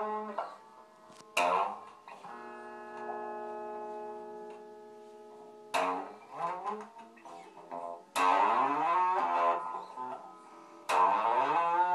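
Electric guitar solo: loud flurries of notes with pitches sliding upward, four times, separated by quieter pauses. After the first flurry a chord rings out for about three seconds.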